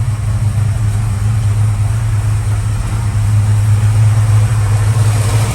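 Valiant Charger's engine idling steadily with an even low hum, running after an oil change.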